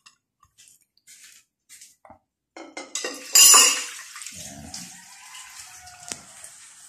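A few light clinks, then a loud gush of water about three seconds in that settles into water running steadily.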